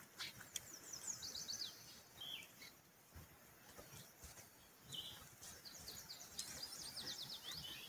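Songbirds chirping: quick runs of short, high, falling notes, once near the start and again in the second half, with a couple of single calls in between, over faint outdoor background.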